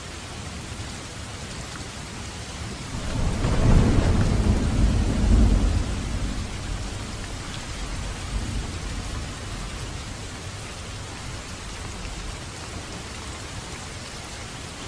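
Steady rain with a roll of thunder that swells about three seconds in, peaks, and rumbles away over the next few seconds.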